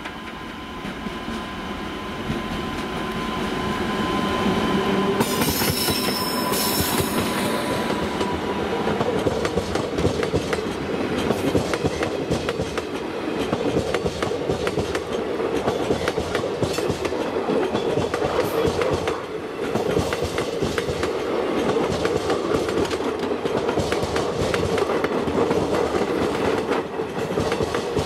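WAP7 electric locomotive approaching and passing at speed with a passenger train, its steady whine growing louder and then fading about eight seconds in. Passenger coaches then roll past with a dense, steady clickety-clack of wheels over rail joints.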